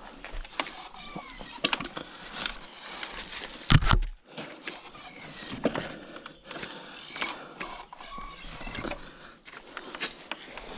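Sur-Ron electric dirt bike's motor whining in short spurts that rise and fall as the throttle is eased on and off at low speed, with mechanical rattles and creaks from the bike over rough ground. One loud knock comes about four seconds in.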